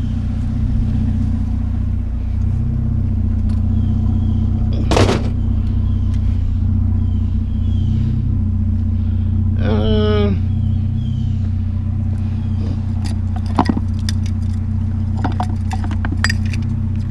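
Vehicle engine idling steadily. A sharp clank comes about five seconds in, a short falling pitched sound near ten seconds, and a few lighter knocks later on.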